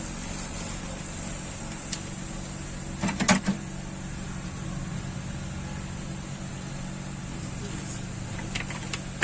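Hot air blower running steadily to dry alcohol off a laptop circuit board, a constant motor hum with a hiss. A short cluster of clicks and knocks comes about three seconds in.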